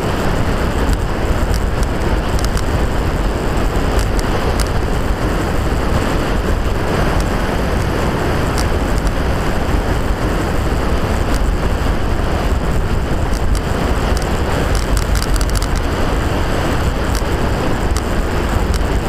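Sinner Mango Sport velomobile riding at speed on a paved path: a steady, loud rush of wind and rolling rumble through the fairing, heaviest in the low end, with scattered faint clicks and rattles.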